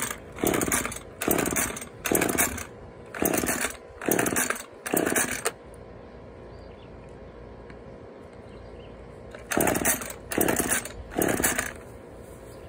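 Husqvarna chainsaw's recoil starter being yanked over and over, each pull a short rasp, with the engine not catching. About six quick pulls, a pause of about four seconds, then four more pulls.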